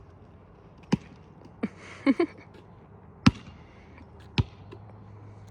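Basketball bouncing: single sharp bounces, roughly a second apart.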